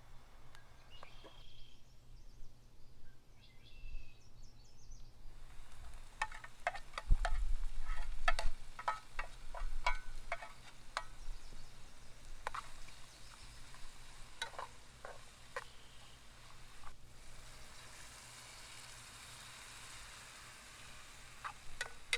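Food being cooked in a pan: a run of sharp clicks and knocks from utensils, then a steady high sizzle near the end.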